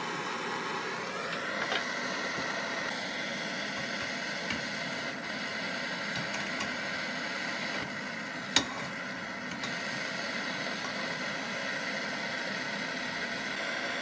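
Hand-held gas blowtorch burning steadily with a hiss as its flame heats a heat-fit pulley on a washing machine motor shaft. A single sharp click about eight and a half seconds in.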